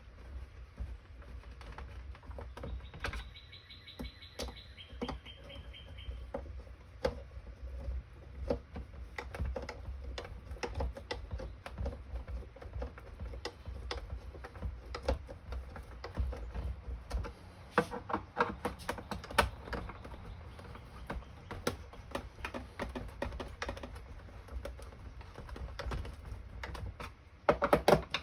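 Irregular small clicks and taps of a hand screwdriver, screws and parts on a jump starter's plastic case as it is screwed back together. A short high squeal that drops in pitch comes about three seconds in, and a louder clatter comes near the end.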